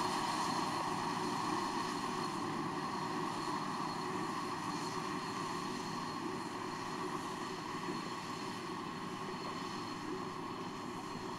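Fendt tractor pulling a Hawe manure spreader at work, the engine and the spreader's rear spreading beaters running steadily under load. The sound gets slowly a little quieter.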